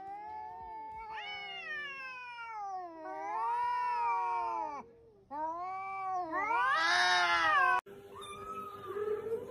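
Kittens meowing in a string of long, drawn-out calls that rise and fall in pitch, growing louder towards the end. The calls cut off abruptly a little before the end, leaving only faint sounds.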